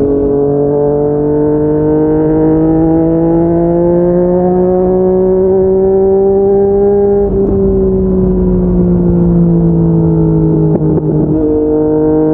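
Yamaha MT-09 three-cylinder engine through an aftermarket slip-on exhaust, under a steady pull. Its pitch climbs slowly for about seven seconds, falls as the throttle eases, then changes in steps near the end.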